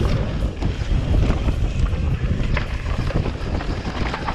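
Wind rushing over the camera microphone and a mountain bike's tyres rolling on a dirt trail, with scattered rattles and knocks as the bike runs over bumps.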